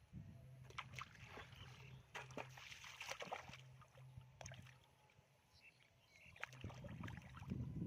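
Faint splashing and sloshing in shallow floodwater, with scattered short sharp splashes over a low steady hum.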